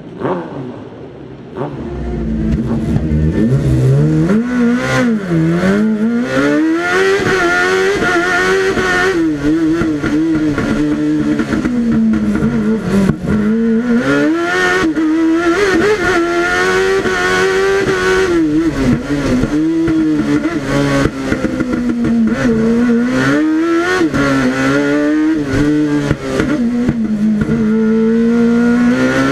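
Kawasaki ZX10-R 1000cc inline-four motorcycle engine in a Fiat Cinquecento race car, driven hard, its pitch climbing and dropping again and again through gear changes and corners. It gets much louder about two seconds in and is then heard from inside the car's cockpit.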